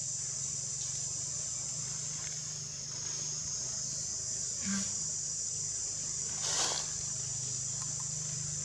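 Steady high-pitched insect chorus buzzing throughout, over a faint low hum. There are two brief noises, the louder one about six and a half seconds in.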